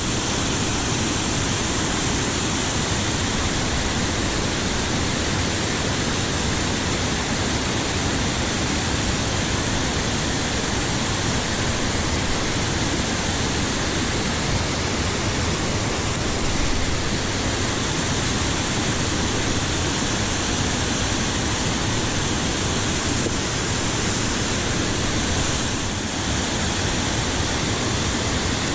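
Steady rushing of a waterfall on a mountain stream, an even wash of water noise that cuts in suddenly at the start and holds unchanged.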